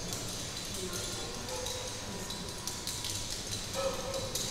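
Scattered small clicks, ticks and light taps from kinetic sound sculptures and vibrating objects, over a faint steady high tone.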